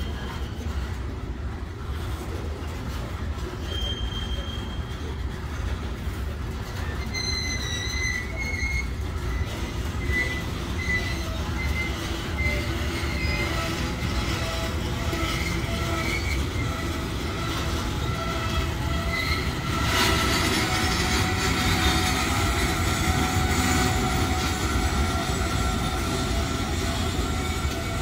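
Florida East Coast Railway freight cars rolling past with a steady low rumble of steel wheels on rail, and high, wavering wheel squeals that come and go. The sound grows louder about two-thirds of the way through.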